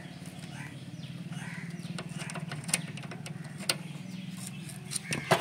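A few light metallic clicks from the TVS XL Super's rear brake rod adjuster nut being turned by hand to set the drum brake, over a steady low hum.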